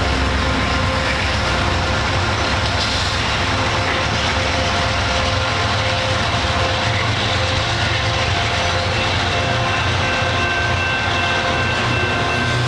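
Train running steadily: a constant rumble with several steady tones held over it.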